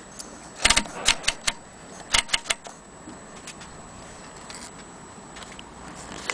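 1927 Mignon typewriter being typed on: four sharp clacks in quick succession about a second in, then three more about two seconds in, with only faint clicks after that.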